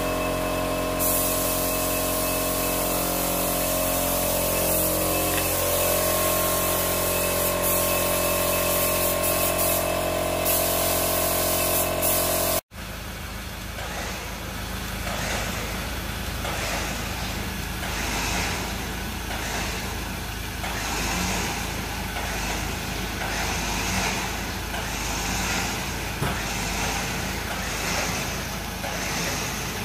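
Spray gun hissing over a steady motor hum while a vehicle's wheel area is spray-painted. After a sudden cut, short bursts of air hiss come about once a second as a hose is worked at the front bumper.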